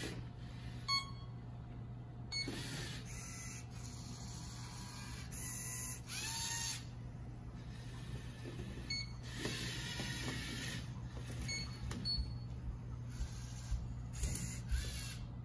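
LEGO Mindstorms EV3 robot's servo motors whirring in several short runs as the machine moves and handles the spinners, with a few sharp clicks between runs.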